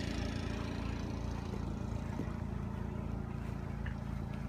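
Steady low drone of an engine running at a constant speed, with no rise or fall.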